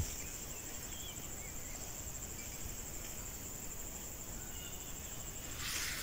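Field insects trilling steadily, a continuous high chirring, with a few faint chirps over it.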